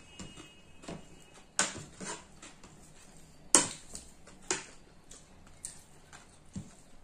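Eating sounds from people eating rice: irregular wet mouth clicks and smacks of chewing, with a spoon tapping and scraping on a plate. One sharper click stands out about three and a half seconds in.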